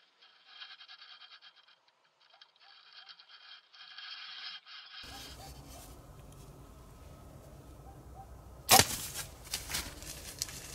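Scratching and rustling close to the microphone in bursts, then after a change in the background one sudden loud sharp crack a little under two seconds before the end.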